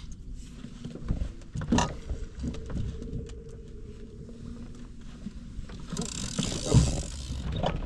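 Knocks and handling thumps on a fishing boat over a steady low rumble, with a short rush of hiss about six seconds in.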